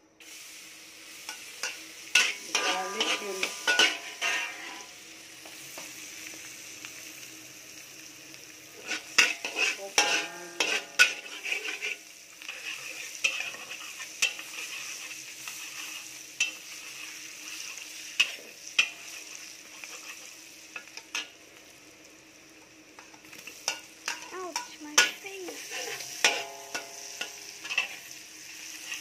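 Chopped garlic and onion sizzling in melted butter in a steel wok, with a metal spatula scraping and clinking against the pan in three spells of stirring.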